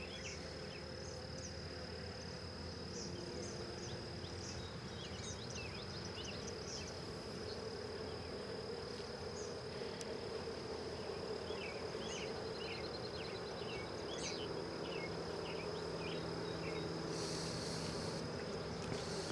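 Honeybee colony buzzing around an opened hive during a frame inspection: a steady hum that swells slightly partway through. Over it run a thin, steady high whine and many short, high chirps.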